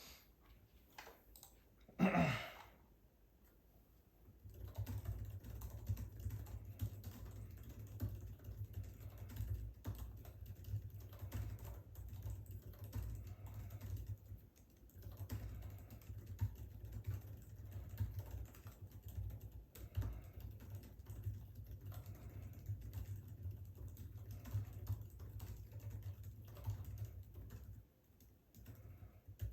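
Very fast touch-typing on a 2021 MacBook Pro 14-inch's scissor-switch laptop keyboard, a dense stream of rapid key clicks. It starts about four seconds in, after a few scattered clicks and one short loud sound falling in pitch, and pauses briefly near the end.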